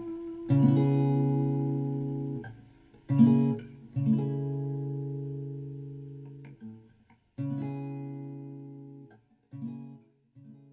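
Background acoustic guitar music: slow chords struck every few seconds, each left to ring and fade.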